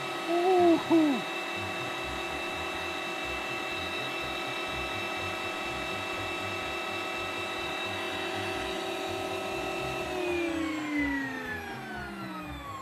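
Professional electric meat grinder's motor running with a steady whine as it pushes banana and strawberry-yogurt puree through the cutting plate, then its pitch falling steadily from about ten seconds in as the motor winds down. A short vocal sound about a second in.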